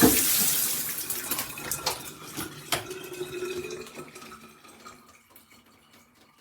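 Shower water running, cut off with a knock right at the start; the flow dies away over a few seconds into scattered drips.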